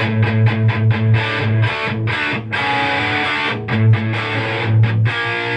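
Electric guitar played straight into an Egnater Rebel 20 tube amplifier with the gain turned up: a distorted, chord-based riff broken by many short, quick stops.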